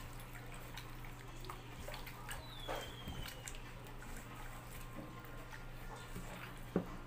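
Hands kneading sliced pork in a wet marinade in a stainless steel bowl: faint wet squelches and small scattered clicks over a steady low hum. A brief high falling chirp comes about two and a half seconds in, and a sharper knock near the end.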